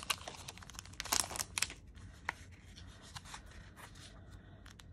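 Clear plastic packaging sleeve crinkling as a small pad of paper is pulled out of it. The crinkling is densest in the first two seconds, then gives way to faint rustles and a few light ticks of paper being handled.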